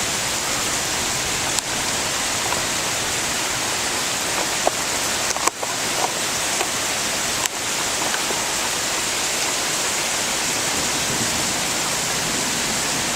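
Steady rain falling in a thunderstorm, an even hiss, with a few sharp ticks here and there.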